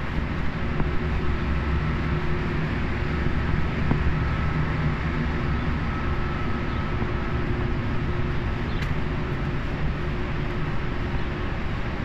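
Steady low rumble of distant city traffic, with faint steady hums above it.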